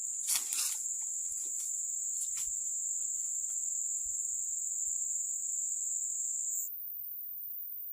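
Insects calling in one steady, high-pitched drone that stops abruptly near the end, leaving a fainter, even higher whine, with a few soft clicks early on.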